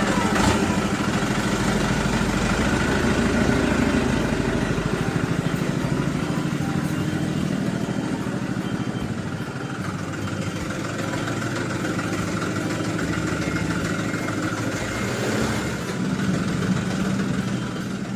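A motor running steadily with a fast, even rattling pulse, dipping a little midway and swelling again near the end.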